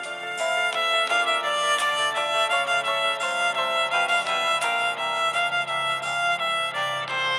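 Emotional background music led by violin, playing a melody of short notes.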